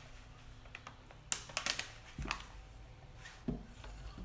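Rubber hand roller being pressed and rolled over a flexible magnetic sheet on adhesive tape. It gives a quiet run of handling noise: a quick cluster of light clicks about a second and a half in, and a couple of soft thumps later.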